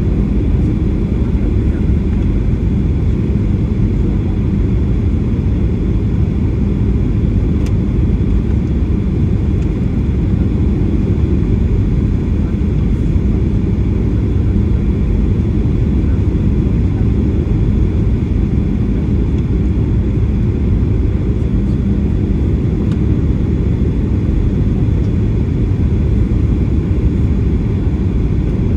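Boeing 737-800 cabin noise in flight, heard from a window seat: a steady deep rumble of the engines and rushing air, unchanging throughout.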